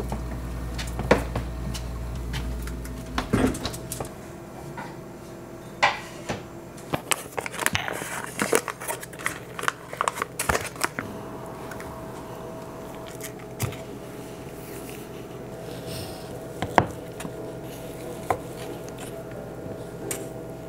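Kitchen clatter: dishes and utensils clinking and knocking, with a dense run of quick taps and clinks about six to eleven seconds in, then only occasional knocks.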